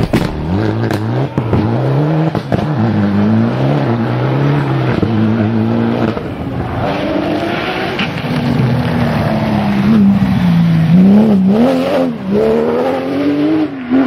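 Rally car engines at stage pace: a Mitsubishi Lancer Evolution's turbocharged four-cylinder revving up and down as it drives through a corner. From about six seconds in, a Porsche 911 GT3's flat-six approaches and revs through gear changes, its pitch climbing and dropping several times near the end.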